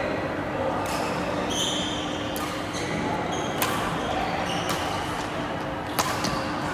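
Badminton being played in an indoor hall: a few sharp racket hits on the shuttlecock, two of them standing out about two and a half seconds apart, with short high squeaks of shoes on the court floor.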